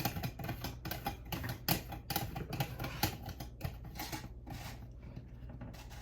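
A rapid, irregular run of clicks and rattles from small hard parts being handled, several a second, thinning out near the end.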